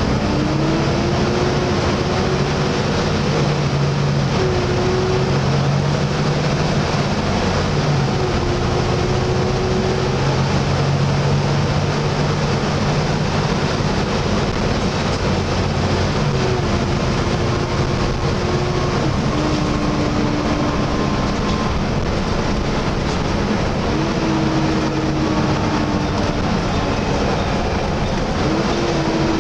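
Volvo B7TL double-decker bus heard on board: the six-cylinder diesel running under way beneath the loud whooshing whine of its engine cooling fan, the 'hoover'. The noise is steady and loud, and the engine note holds one pitch, then shifts to another several times.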